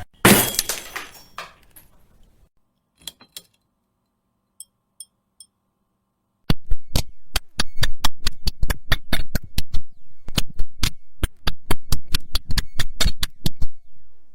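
Light bulb sound effects: a sudden crash just after the start that rings away over a second or two, a few faint clicks and small tinkles, then from about halfway a long run of sharp, irregular clicks, several a second.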